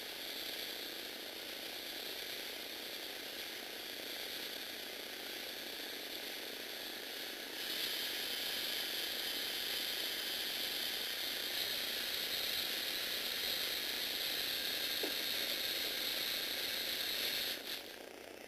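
Lego Mindstorms NXT motors running the plastic gear trains of a Lego mini earthquake shake table, a steady mechanical whir with gear chatter. It gets louder about a third of the way in and drops back shortly before the end.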